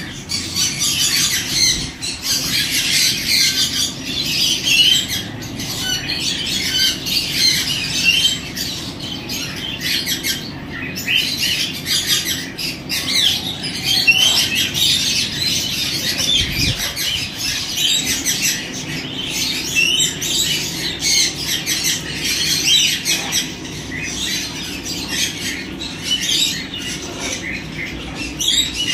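Many caged birds, parrots among them, chattering and squawking at once: a steady din of high, overlapping calls with no pause.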